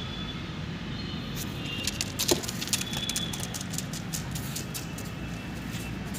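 A Labrador's claws clicking and tapping on a tiled floor as it runs after a ball, with a louder knock about two seconds in. Underneath is a steady low background rumble.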